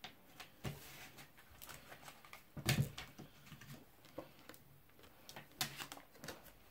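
Tarot cards being handled: scattered light taps and slides of cards, with one louder knock about three seconds in.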